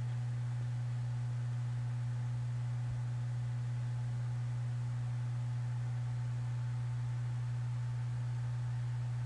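Steady low-pitched hum with a faint hiss behind it, unchanging throughout.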